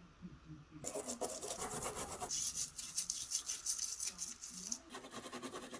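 Rapid abrasive scrubbing, like a rust-removal or sanding pass on the hand plane's parts, starting about a second in and running in quick strokes, with a short break near the end.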